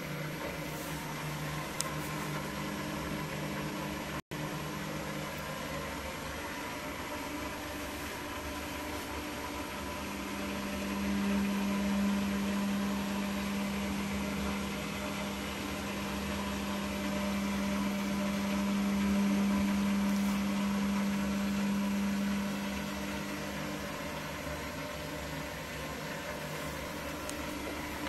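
Hotpoint-Ariston Aqualtis front-loading washing machine running with a steady motor hum. About ten seconds in, a stronger low hum swells up, holds, and fades back at around twenty-three seconds.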